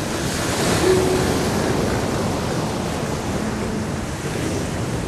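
Ocean surf breaking on a beach, a steady rushing wash of waves, with some wind.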